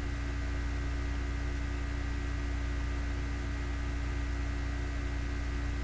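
Steady electrical hum with a layer of hiss, unchanging throughout: background noise of the recording setup.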